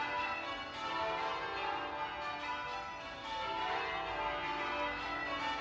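Wymondham Abbey's tower bells ringing in changes, many bells struck one after another in quick succession, their tones overlapping in a continuous peal.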